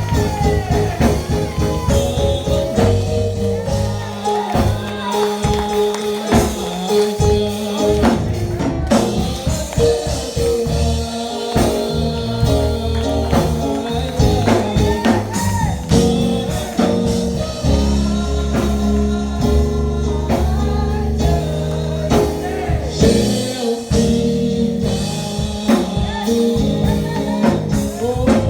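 Live gospel church music: singing over a band with held chords, a bass line and steady percussion.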